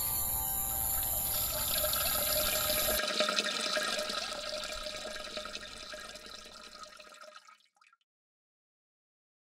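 A steady droning noise for the first three seconds, then a toilet flushing: rushing water that fades away over about four seconds into silence.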